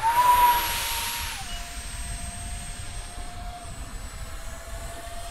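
Whine of a radio-controlled jet's electric ducted fan in flight. It rises in pitch and is loudest, with a rush of air, for the first second and a half, then steps down in pitch and holds a steady whine.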